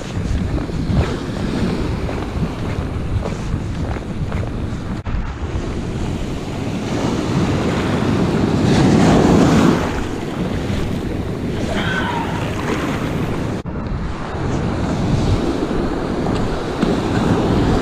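Ocean surf breaking and washing up the sand, with wind buffeting the microphone; the wash swells loudest about halfway through.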